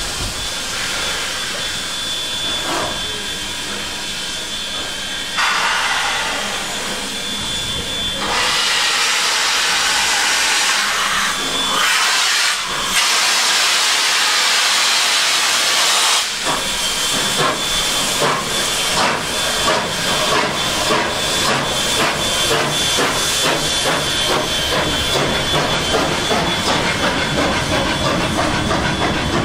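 Ex-SNCF 141R steam locomotive starting a train: steam hissing while it stands, then a long loud blast of steam from the open cylinder drain cocks, followed from about halfway on by exhaust chuffs that come quicker and quicker as it pulls away, with the coaches rolling by.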